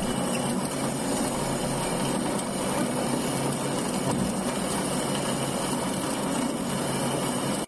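Doall vertical bandsaw running, its band blade cutting through a hand-fed wooden workpiece: a steady, even sawing noise.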